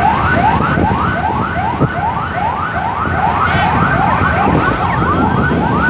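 Ambulance siren sounding a fast yelp: quick rising sweeps, about two to three a second, with a second siren's sweeps overlapping near the end. A steady motorcycle engine and road rumble runs underneath.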